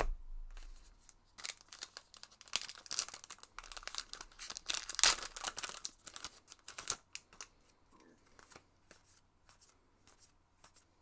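Foil trading-card booster pack being torn open, its wrapper crinkling, loudest about five seconds in. Then light ticks as the cards are handled.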